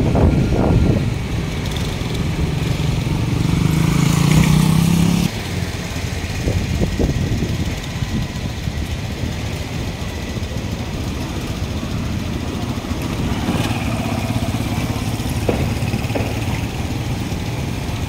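Street traffic: motor vehicle engines running close by. One engine hums loudly for the first five seconds and cuts off suddenly, leaving a steady low traffic rumble.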